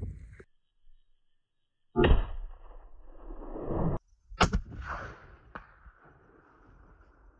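A bow shot at a Himalayan tahr: a sudden sharp snap of the released bowstring about two seconds in that dies away, then a second, sharper crack a couple of seconds later that fades out.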